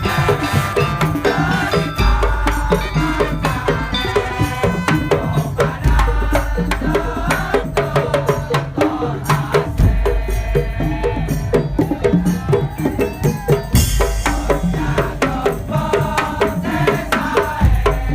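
Madurese ul daul (tongtong) ensemble music: dense, fast drum and wooden percussion under a ringing melody, with a deep bass note about every four seconds.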